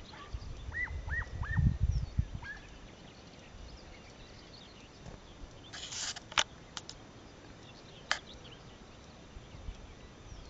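Wind buffeting the microphone in open country. About a second in come four or five short, high calls, each falling in pitch, from a distant animal. A few sharp clicks follow in the middle.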